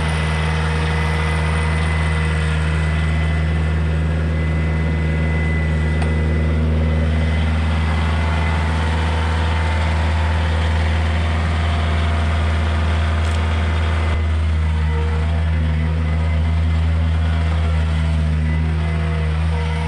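An engine running steadily, with a slight shift in its tone about fourteen seconds in.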